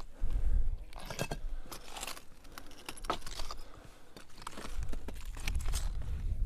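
Irregular crunching and clinking sounds, a dozen or so scattered strikes, over a low rumble that swells near the start and again toward the end.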